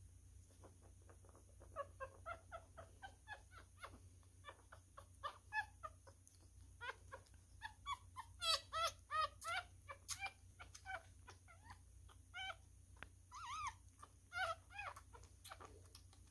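Newborn miniature schnauzer puppy squeaking and whimpering during syringe feeding: many short high-pitched cries in quick succession, busiest and loudest about halfway through.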